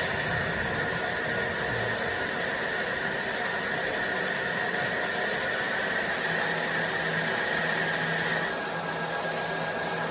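Handheld laser welder with wire feed running a slow weld bead: a steady hiss with high steady whines. It cuts off about 8.5 seconds in, leaving the machine's quieter steady hum.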